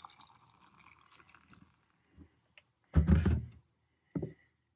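Water pouring from a kettle into a glass jar of marigold flower heads, trailing off over the first two seconds. A loud knock follows about three seconds in and a softer knock near the end.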